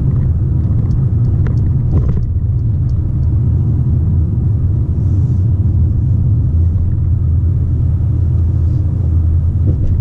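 Steady low rumble of road and engine noise inside the cabin of a Mercedes-Benz A200 (W177) cruising at highway speed.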